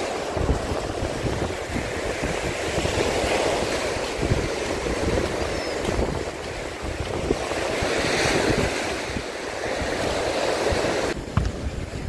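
Sea surf: waves breaking and washing up on a sandy beach, swelling and easing every few seconds, with wind buffeting the microphone.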